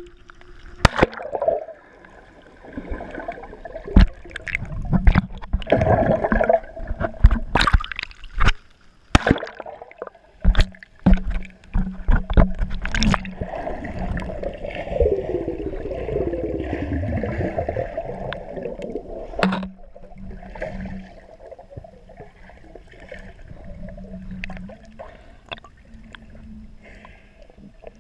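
Water heard through a submerged camera's waterproof housing as a swimmer moves underwater and breaks the surface: muffled sloshing and gurgling broken by many sharp knocks and splashes. A wavering sound falls in pitch about halfway through, and the water grows calmer in the last third.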